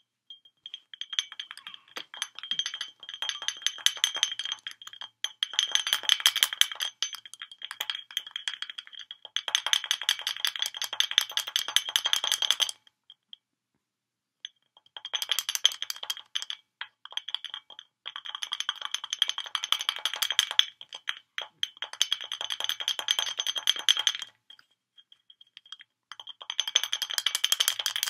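A cockatoo rapidly tapping and rattling its beak against the neck of a glass wine bottle, making runs of fast clicks that set the glass ringing with a steady high tone. About five runs of several seconds each, with short pauses between them.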